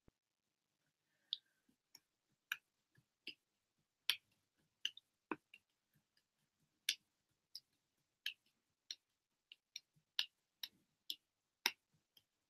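Irregular sharp clicks, roughly two a second, starting about a second in, with dead silence between them.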